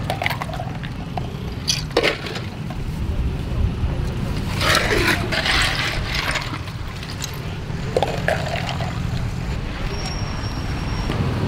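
Ice cubes clattering and cracking as a plastic dipper scoops through a box of crushed ice, with a few sharp knocks of plastic on ice and a longer rattle about halfway through, then a drink poured from the dipper into a plastic cup near the end. A steady low rumble runs underneath.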